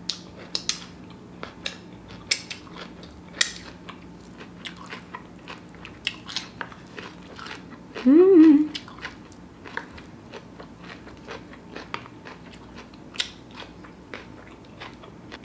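Close-up eating and mouth sounds: many small wet clicks and crunches of chewing vegan sushi bake, with one short rising hum about eight seconds in.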